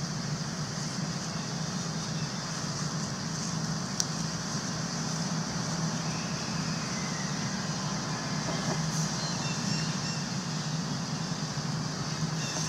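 Steady outdoor background noise: a low hum with a high hiss over it, and one sharp click about four seconds in.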